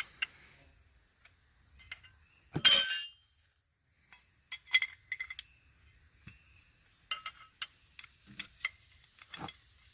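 Steel hand tools clinking and tapping on a stuck hose fitting, with one louder, longer clank about two and a half seconds in and scattered light clinks after it.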